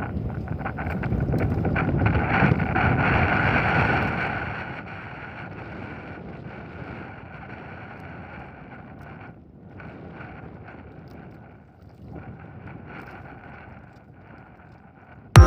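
A boat's motor runs steadily with wind buffeting the microphone, louder for the first four seconds and then lower. A single sharp click comes right at the end.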